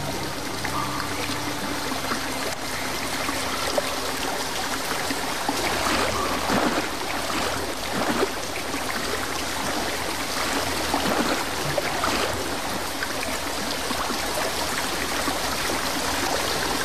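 Steady running and trickling water filling a flooded cave, the water still rising.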